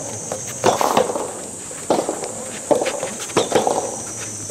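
Soft tennis play: sharp hits of the rubber ball and players' shoes scuffing and sliding on a sand-filled artificial-grass court, in short bursts about every second, over a steady high-pitched drone.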